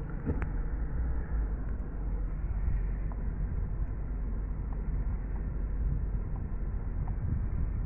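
Low, steady rumble of a car's engine and tyres heard from inside the cabin as it moves slowly in drive, with a few faint ticks.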